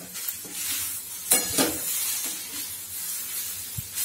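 Metal spatula scraping and stirring boiled green gram sundal with grated coconut in a metal kadai. A few louder scrapes come about a second and a half in.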